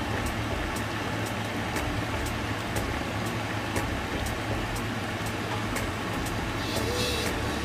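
A steady low mechanical hum with faint clicks about twice a second; a faint wavering tone comes in near the end.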